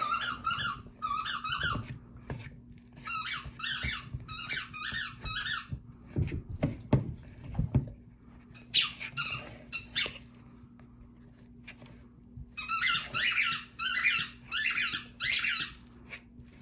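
Dog squeezing a squeaky toy in runs of rapid, high squeaks, about four or five a second, with pauses between the runs.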